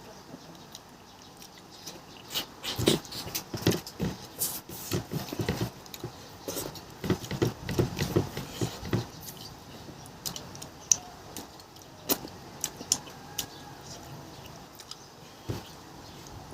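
Close-up sounds of a person eating: irregular wet smacks and clicks of chewing and mouth noises, busiest from about three to nine seconds in, then sparser.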